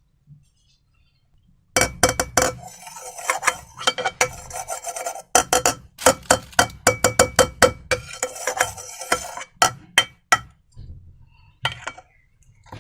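Slime-making materials being stirred and scraped in a container: a dense run of sharp clicks over rasping scrapes, starting about two seconds in and thinning out near the end.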